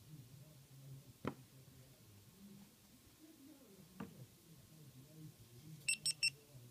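Two sharp clicks of a GoPro Hero3+ Black's power/mode button being pressed, then near the end three quick high beeps as the camera powers on.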